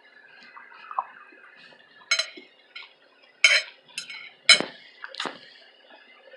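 Cutlery knocking against a dish during a meal: a handful of short, sharp clinks in the second half, the loudest about three and a half and four and a half seconds in.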